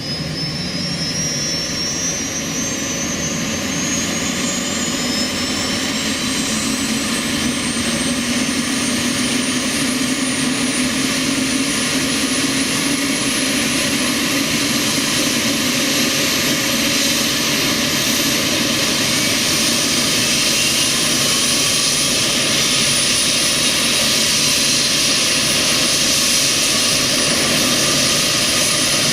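Bell 206LT TwinRanger helicopter's turbine engine spooling up during startup: a high whine that climbs in pitch over the first ten seconds or so and then holds steady over a loud, even rush that grows slowly louder.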